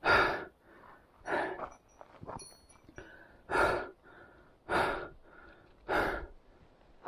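A hiker's heavy panting on a steep mountain climb, a loud breath about every 1.2 seconds with softer breaths between: the climber is out of breath from the ascent.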